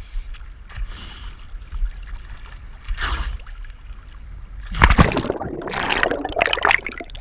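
Sea water sloshing and splashing around the camera over a steady low rumble of wind on the microphone. About five seconds in comes a loud sudden knock, followed by nearly two seconds of rougher splashing.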